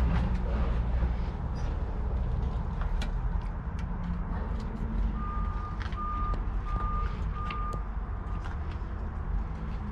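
Vehicle reversing alarm beeping about five times at an even pace, starting about five seconds in and fading near the end, over a steady low rumble with scattered small clicks and knocks.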